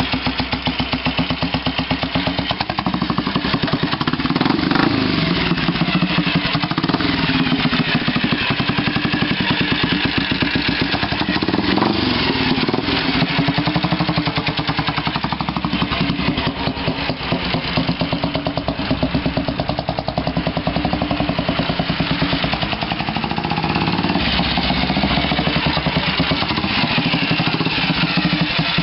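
Junak M10 motorcycle's single-cylinder four-stroke engine running with a steady, even exhaust beat. It is revved up and back down several times.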